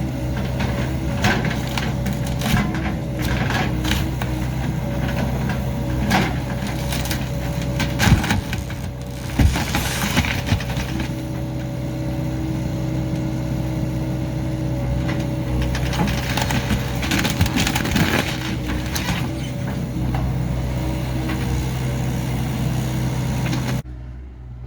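Excavator engine running steadily while its bucket tears up and crushes a mobile home's wooden floor and joists, with repeated cracking and splintering of wood. The loudest cracks come about eight and nine and a half seconds in.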